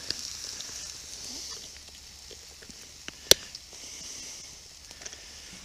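Pork belly in sauce sizzling in a frying pan, a soft high hiss that swells and fades, with one sharp crack about three seconds in and a few faint ticks.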